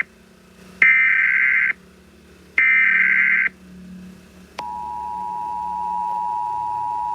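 Emergency Alert System signal. First come two short screeching data bursts of the digital alert header, each just under a second long. Then, about four and a half seconds in, the steady two-tone attention signal begins and holds.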